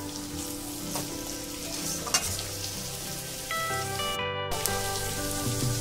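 Onions and potatoes frying in hot oil in a kadai, a steady sizzle, while a flat steel spatula stirs them, with a sharp scrape of the spatula against the pan about two seconds in.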